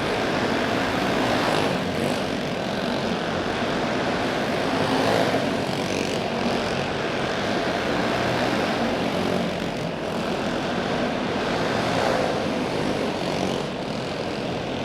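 Several racing go-kart engines buzzing at high revs, with the pitch swelling and falling as karts go by.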